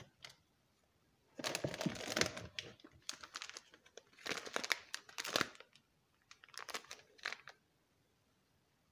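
Foil-lined bag of Barcaffè ground coffee crinkling as it is handled and turned over in the hand, in four bursts of crackling about a second apart.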